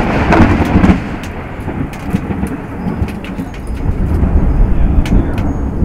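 A thunderclap: a sudden loud crack, loudest for about the first second, then a rolling rumble that swells again about four seconds in.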